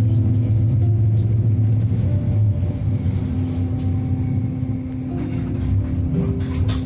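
Narrow-gauge train running, a steady low rumble and hum heard from inside the carriage, with a few brief clicks near the end.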